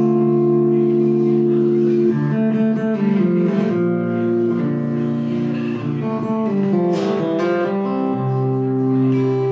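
Guitar playing sustained chords as a song's instrumental introduction, the chord changing about every two seconds.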